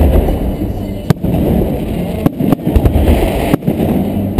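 Aerial fireworks bursting overhead: about five sharp bangs, spaced roughly a second apart with two in quick succession midway, over a continuous low rumble of the display.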